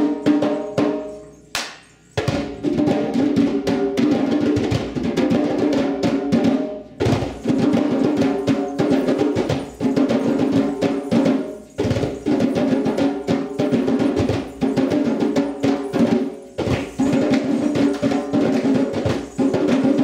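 Djembe hand drums played together in a fast, dense rhythm over steady pitched tones, dropping out briefly about two seconds in and pausing for a moment between phrases every few seconds.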